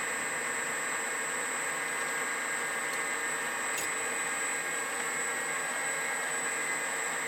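Small metal lathe running steadily while machining brass stock, a constant whine over an even hiss.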